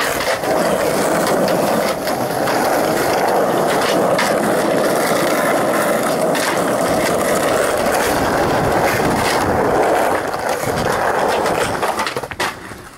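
Skateboard wheels rolling over asphalt in a steady loud roar, with a few sharp clacks of the board. The rolling dies away about ten seconds in.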